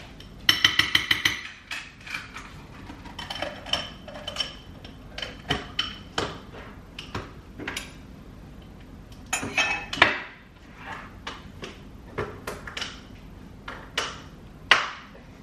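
Kitchen items being handled and set down on a countertop: a quick metallic rattle near the start, then scattered clinks, knocks and a couple of sharp clacks.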